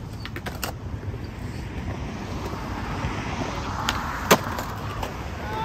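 Skateboard wheels rolling on concrete, the rolling growing louder, then two sharp clacks of the board about four seconds in, the second much the loudest: the board popped for a trick and landing.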